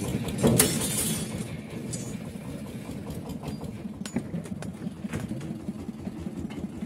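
An engine running steadily, with a loud metal clank about half a second in and a few lighter knocks later.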